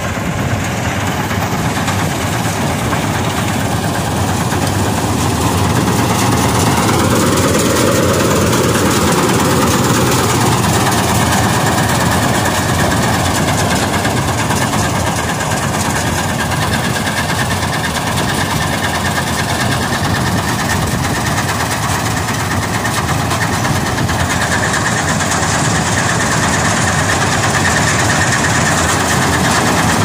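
Gurdial 651 combine harvester's diesel engine and threshing machinery running in a loud, steady din while cutting soybean. The sound grows louder about a fifth of the way in as the machine comes close.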